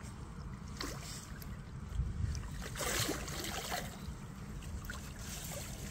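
Lake water splashing and sloshing as a carp is released from a landing net into the shallows, with a short splash about a second in and a louder, longer burst of splashing around three seconds in. A steady low rumble of wind on the microphone lies underneath.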